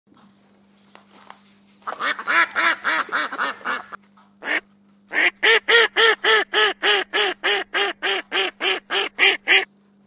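Goose honking in rapid runs of calls, about four a second: a burst about two seconds in, a single honk near the middle, then a longer run to near the end, over a faint steady hum.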